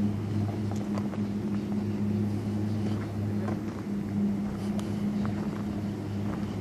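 Steady low hum of chairlift machinery, with scattered light clicks and rattles.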